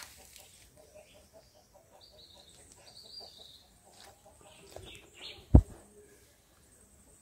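Birds chirping faintly in the background, with one loud, short thump about five and a half seconds in.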